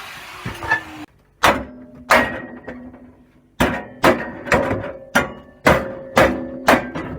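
Hammer blows on the metal of a gas combi boiler being broken up for scrap: about nine sharp strikes, each with a short metallic ring, after a second of rough scraping noise that stops abruptly.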